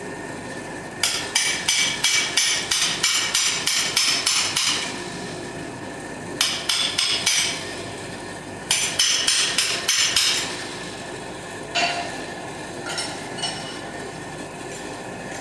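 Hand hammer striking steel on an anvil in three quick runs of ringing blows, about three or four a second, then a few lighter single taps. A steady whine runs underneath.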